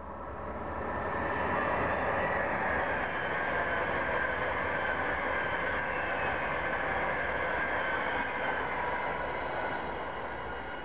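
High-speed express passenger train passing at speed. The rush of wheels and air builds over the first couple of seconds, holds steady with a high whine, then fades near the end.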